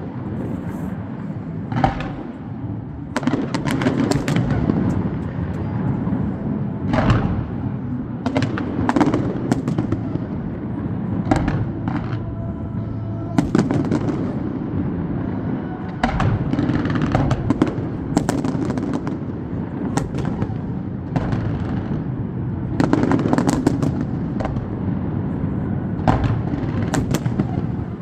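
Fireworks display: a long run of bangs and crackling bursts at irregular intervals, often several within a second or two, over a steady background din.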